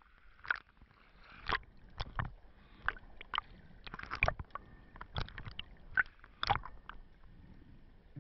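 Sea water sloshing and splashing around a camera at the sea surface, heard as irregular sharp clicks and gurgles at uneven intervals.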